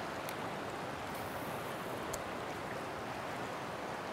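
Steady rush of a shallow, rocky river flowing over stones, with a few faint ticks over the top.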